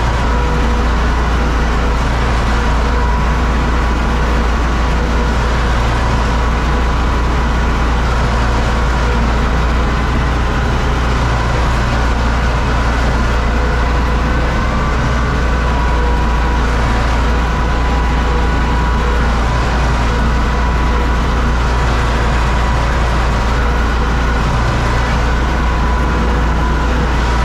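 The Universal U650 tractor's diesel engine runs steadily under load, heard from inside the cab, together with the PTO-driven Zmaj Zemun 223 corn picker working through the rows. It is a loud, constant drone with a faint steady whine above it.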